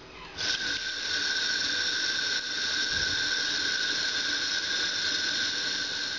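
Kitchen tap turned on about half a second in, its stream pouring into an enamel pot of pitted plums, with a steady high-pitched whistle over the rush of the water.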